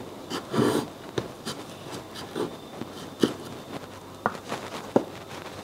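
Kitchen knife cutting the peel off mango slices on a wooden cutting board: soft scraping strokes and several light taps of the blade on the board.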